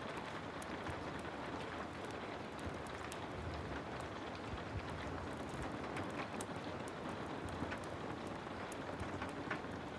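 Heavy rain falling steadily, with many brief sharp crackles scattered over the hiss.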